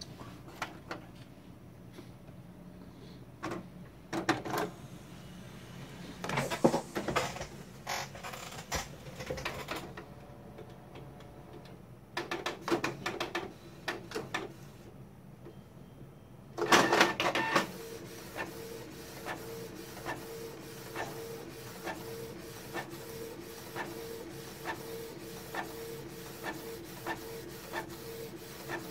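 Canon G1000 inkjet printer working through a print job. For the first half there are irregular clunks and whirs from its mechanism. A little past halfway it settles into a steady hum, with the print-head carriage ticking back and forth about twice a second as the page feeds out printed.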